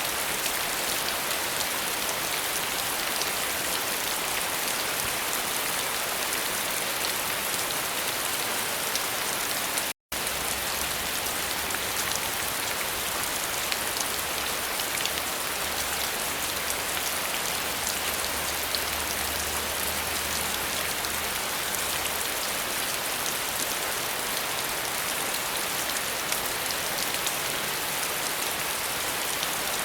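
Steady rain falling: a dense, even hiss of drops with many small ticks. The sound cuts out completely for an instant about ten seconds in.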